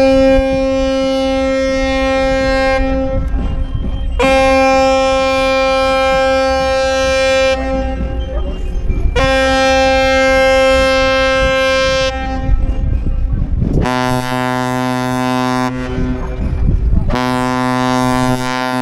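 Ships' horns sounding as a tall ship departs: three long blasts on one horn, then two long blasts on a deeper horn.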